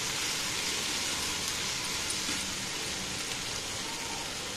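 Potatoes and onion-spice masala sizzling steadily in oil in a nonstick pan while being stirred and roasted.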